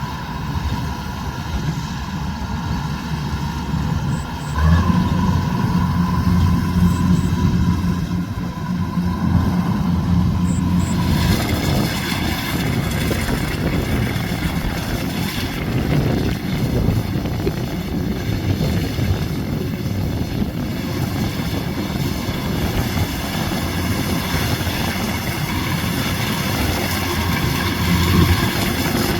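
Kubota DC105X combine harvester running as it harvests rice: a steady diesel engine drone with machinery noise. The engine note grows louder about five seconds in, and from about eleven seconds a brighter, hissier mechanical noise joins it.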